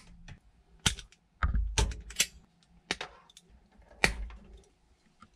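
Diagonal side cutters snipping and stripping thin automotive wires: a string of sharp, separate clicks, about half a dozen, two of them with a duller knock from handling.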